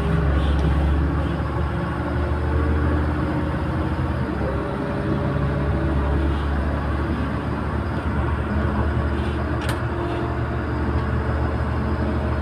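Güleryüz Cobra GD-272 city bus running: a steady low engine drone with a faint whine above it. A single sharp click about ten seconds in.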